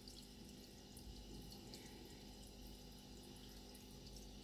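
Aquarium water faintly trickling and dripping, with many small scattered drips over a low steady hum.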